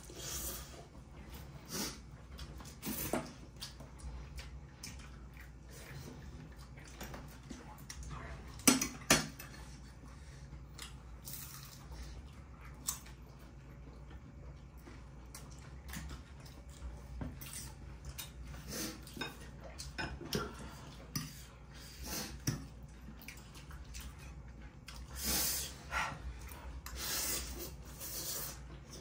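Forks and spoons clinking and scraping against ceramic plates and bowls as people eat, in scattered short clicks, the sharpest two about nine seconds in, over a steady low hum.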